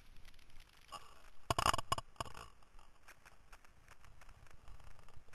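Faint rustling and clicking of handling noise on a chest-mounted action camera, with a short, louder clatter of several sharp knocks about a second and a half in.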